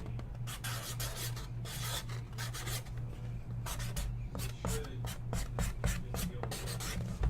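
Trading cards and their packaging being handled by hand: a quick run of short rubbing, sliding and scraping sounds, over a steady low hum.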